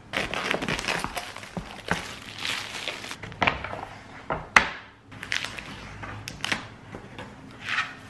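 Plastic and cardboard packaging being handled and opened: crinkling and rustling with several sharp clicks and knocks, the loudest a little past halfway.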